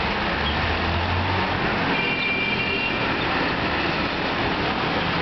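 Steady road traffic noise, with a passing engine's low hum in the first second or so and a brief thin high tone, like a brake squeal, about two seconds in.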